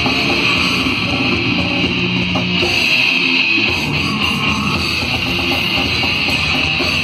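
Heavy metal band playing live through a PA: distorted electric guitars over drums in a dense, loud, continuous wall of sound. About three seconds in, the low end drops out for under a second.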